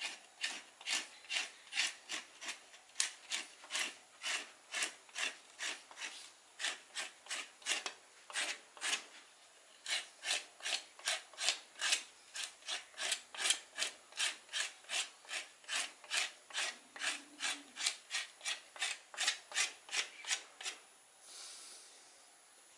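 Rhythmic scraping of a hand blade along a fresh cinnamon stick, shaving off the green outer bark, about two to three strokes a second. The strokes stop about two seconds before the end.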